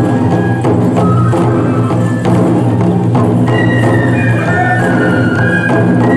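Tora-mai tiger-dance music played live: transverse bamboo flutes playing a high melody over taiko drums beaten in a steady rhythm, with sharp clacks on the drum rims.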